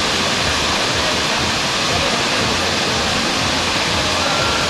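Steady rush of a waterfall and the river below it: an even, unbroken wash of falling water.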